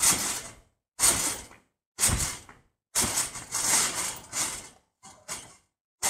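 Trampoline springs and frame creaking and rattling with each bounce, about once a second.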